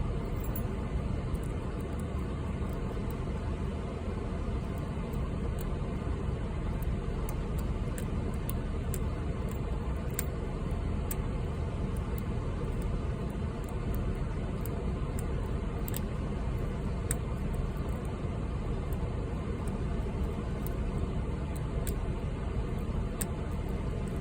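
Steady noise of an air conditioner running hard, with faint scattered clicks of a lock pick and tension wrench working the pins of a padlock.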